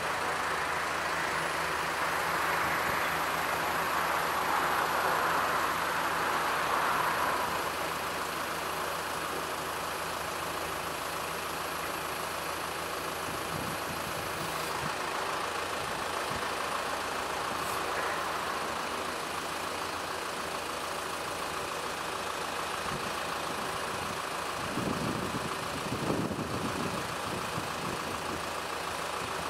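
Diesel engine of a Dieci L-4700 self-loading concrete mixer running steadily while its hydraulics tilt the mixer drum up and lower it again. A hissing rush swells over the first several seconds, and a faint high whine runs through the first half.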